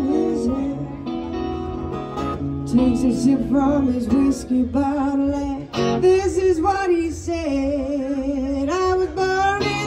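Live acoustic and electric guitar duo: the electric guitar plays a lead line of bent, wavering notes over a strummed acoustic guitar.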